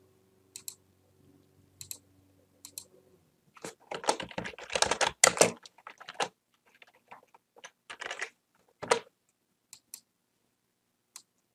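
Typing on a computer keyboard: a quick run of keystrokes about four to six seconds in, with scattered single clicks before and after.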